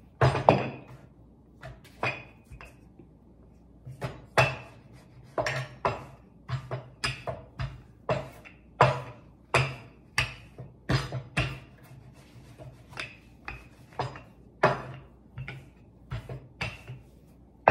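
Wooden rolling pin rolling out chapati dough on a wooden board, knocking and clacking against the board over and over, a little more than once a second in an uneven rhythm.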